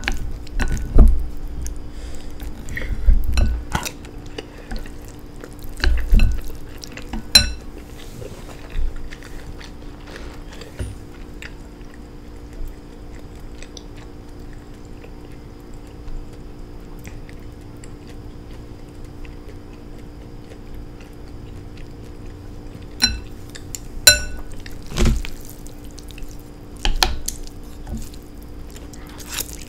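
Utensils clinking and scraping against a bowl while instant noodles are eaten. There are scattered sharp clinks, busier near the start and again near the end, with occasional dull bumps on the table, over a steady low hum.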